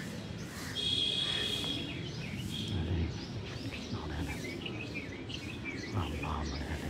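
Birds chirping and calling outdoors, with short chirps throughout and one held high call about a second in, over low rumbling background noise.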